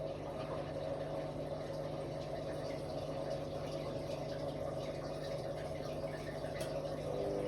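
Ariston Margherita 2000 AL 108 D washer-dryer running: a steady hum with water moving through the machine. Near the end a pump starts up with a steady humming tone.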